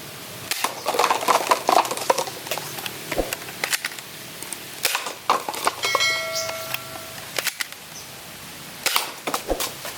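Plastic Nerf Mega Talon toy blaster being handled and worked, giving a run of sharp clicks and knocks. A short ringing tone comes about six seconds in.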